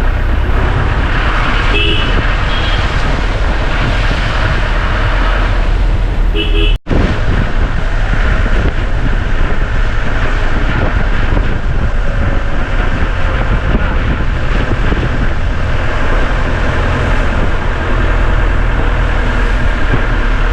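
Car engine and road rumble while driving, with short horn toots about two seconds and six and a half seconds in. The sound drops out for a moment about seven seconds in.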